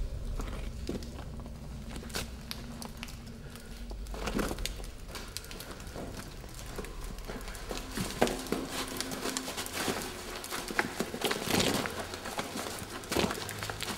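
Irregular crunching and snapping footsteps of several people moving over rough ground and brush, over a low steady rumble.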